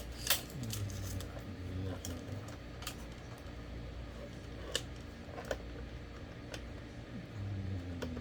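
Scattered small clicks and taps of plastic parts being handled and pressed together while an electric fan is repaired, about seven sharp ticks spread over several seconds, over a low steady hum.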